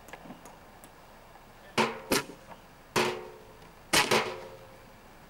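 Five sharp percussive strikes on a resonant object, each leaving a brief pitched ring, starting about two seconds in and falling roughly in pairs.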